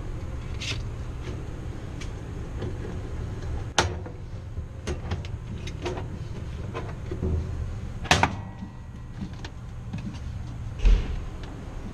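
A cover panel inside a refrigerator's fresh-food compartment being pressed firmly and snapped into place over the evaporator sensor: a series of sharp clicks and knocks, the loudest about 4, 8 and 11 seconds in, over a steady low hum.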